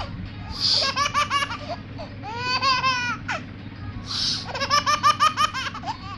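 A baby laughing in three quick, pulsed fits of giggles. A short sneeze sets off the first fit about a second in and the third about four seconds in.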